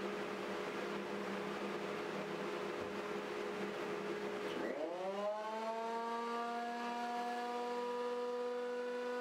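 A steady hum, then about halfway through the JET JJP-8BT jointer/planer's 13-amp motor is switched on. Its 9000 RPM cutterhead spins up in a quickly rising whine that levels off into a steady high whine at full speed, ready for a planing pass.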